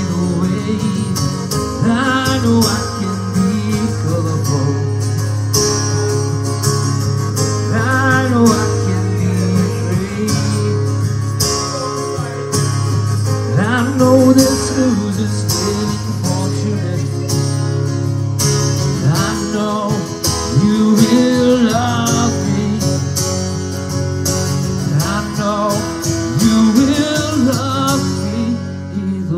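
A man singing a country-style song to his own strummed acoustic guitar.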